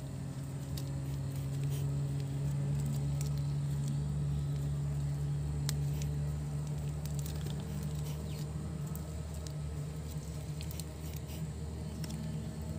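Thin plastic grafting tape crinkling and ticking in irregular small clicks as fingers wrap and pinch it around a grafted water apple shoot, over a steady low hum.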